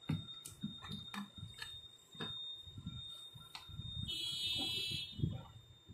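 Brother DCP-L2520D flatbed scanner running a scan: a faint steady high whine with scattered light clicks, and about four seconds in a louder high buzzing tone lasting about a second as the scan carriage moves.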